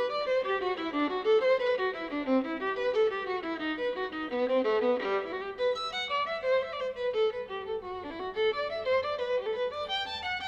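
Background music: a quick melody of short, stepping notes that winds downward in the middle and climbs back up.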